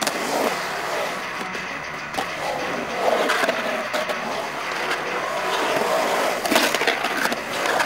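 Skateboard wheels rolling and carving on the concrete walls of a skate bowl, a steady rolling roar broken by a few sharp clacks of the board and trucks.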